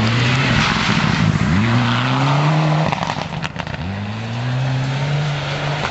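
Rally car's engine pulling hard through the gears. The note climbs, drops at a shift about a second and a half in, climbs again and cuts off around three seconds with a few sharp cracks, then climbs once more.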